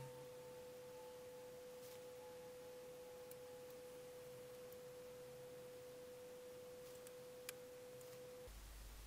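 A faint, steady pure tone that cuts off suddenly about eight and a half seconds in, with a fainter second tone gliding slowly down in pitch.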